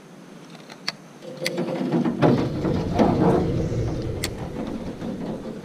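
Spinning fishing reel working: a rapid mechanical gear rattle that builds about a second in and eases off near the end, with a few sharp clicks.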